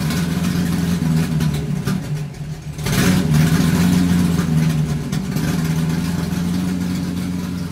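Chevrolet Opala engine running, with a rev about three seconds in that raises the level, then holding a steady note.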